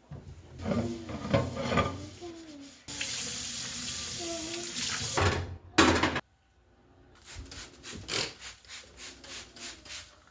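Handling clatter, then water running from a tap for about two and a half seconds before it is shut off abruptly. Near the end comes a run of rhythmic scrubbing or wiping strokes, about two to three a second.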